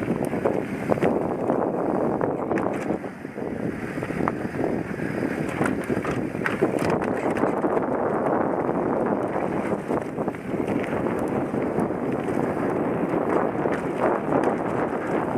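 Downhill mountain bike (Norco Aurum) running down a dry dirt trail: tyres rolling over dirt and roots with a steady rumble, the bike rattling in frequent sharp clicks and knocks, and wind buffeting the helmet camera's microphone.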